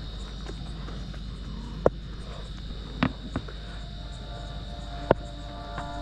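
Steady high-pitched whine over a low rumble, broken by three sharp knocks spaced a second or two apart.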